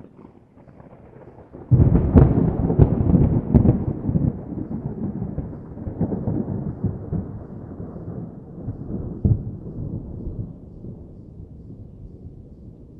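Thunder: a faint rumble breaks into a loud clap with several sharp cracks about two seconds in, then rolls on as a long low rumble that slowly dies away.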